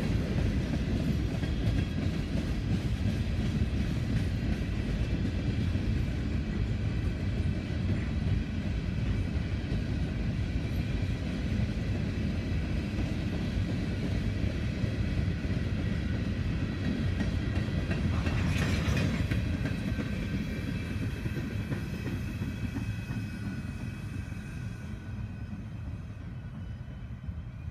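Empty coal hopper cars of a freight train rolling past: a steady low rumble of wheels on rail with faint, steady high wheel squeal. There is a brief high-pitched burst about 18 seconds in, and the sound fades toward the end as the train moves away.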